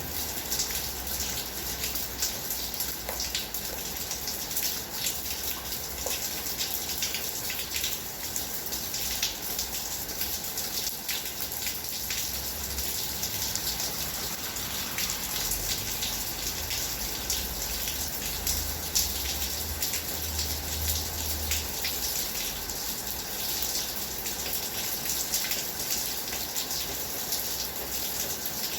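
Heavy rain falling steadily: a dense hiss of water with countless small, sharp drop impacts, and a low rumble that swells and fades now and then beneath it.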